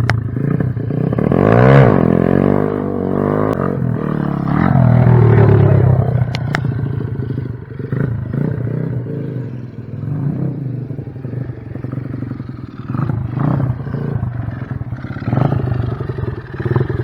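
125cc pit bike engine with a new 26 mm Mikuni carburettor running and being revved: the pitch rises and falls about two seconds in, it is loudest around five seconds, then it runs lower and more unevenly.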